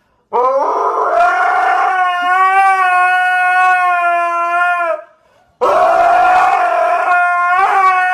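A husky howling: two long, steady howls, the first lasting about five seconds and the second starting just past halfway.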